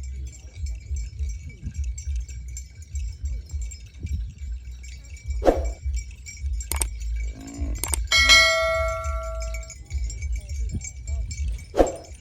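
A cowbell clanking a few times, then ringing out clearly once about eight seconds in. Underneath there is a steady low rumble and a steady high buzz.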